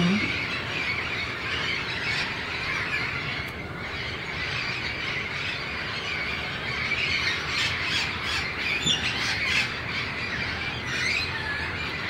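A large flock of wild parrots squawking and screeching in a dense, steady chorus of many overlapping calls.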